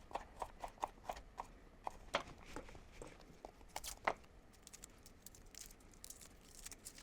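Kitchen knife slicing garlic cloves on a chopping board: a run of light taps as the blade meets the board, quick at first and then sparser, with one louder knock about four seconds in.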